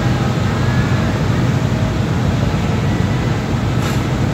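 Steady low engine rumble on a car ferry's vehicle deck while a car drives aboard, with a brief sharp click about four seconds in.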